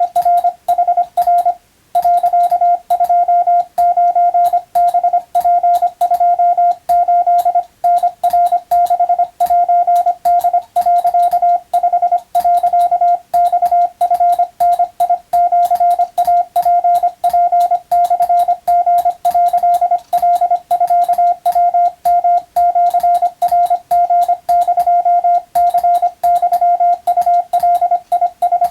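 Morse code (CW): a single steady beep keyed on and off in quick dots and dashes, with short pauses between groups. It is practice sending of Japanese wabun telegram text for the radiotelegraph operator exam.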